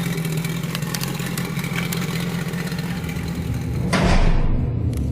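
A vehicle engine running steadily with a low hum. About four seconds in, a sudden rush of noise cuts across it and the sound changes.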